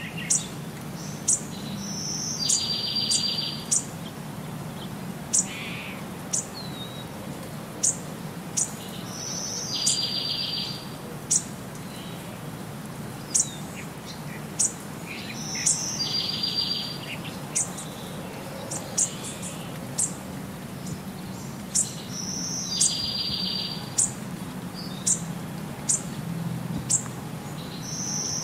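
Looping birdsong background track: short high chirps about once a second, with a brief trilled call repeating about every six or seven seconds, over a steady low hum.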